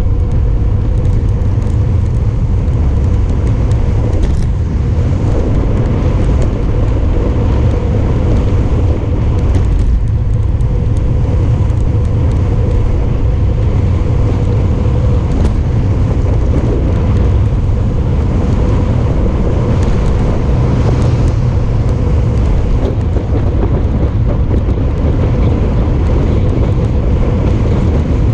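Loud, steady wind rumble on a GoPro's microphone as a road bike descends a mountain pass at speed.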